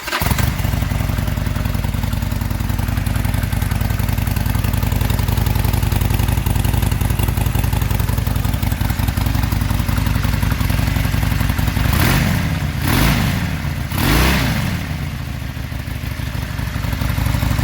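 Harley-Davidson Sportster's V-twin on its stock exhaust firing up and idling, then blipped three quick times about twelve seconds in before settling back to idle.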